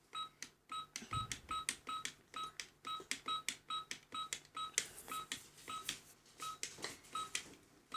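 Toy juicer playset beeping electronically in a steady run of short, same-pitched beeps, about two a second, with plastic clicks and clacks mixed in.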